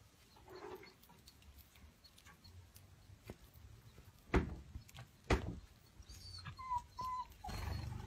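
Gouldian finches and canaries feeding at a seed dish: scattered small taps and clicks of beaks picking at seed, with two sharp knocks about halfway and a few short chirps near the end.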